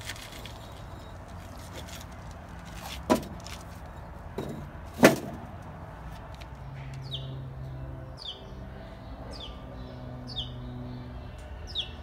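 Two sharp knocks of concrete wall stones being set down on a flatbed cart, the second louder. From about seven seconds in, a small bird gives a run of short falling chirps, about one a second, over a low hum.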